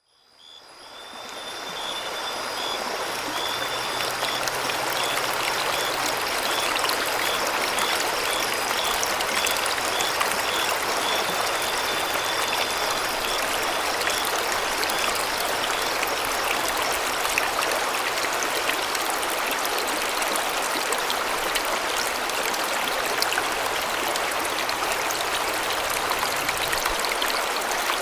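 Bopath Ella waterfall cascading: a steady, dense rush of falling water that fades in over the first couple of seconds. A faint high-pitched pulsing call, about two pulses a second, sounds through roughly the first half.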